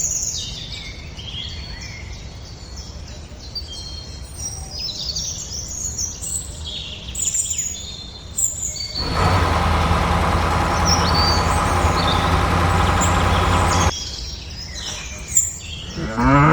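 Small birds chirping over a low steady hum, broken by a loud steady mechanical running noise for about five seconds in the middle. A cow begins to moo right at the end.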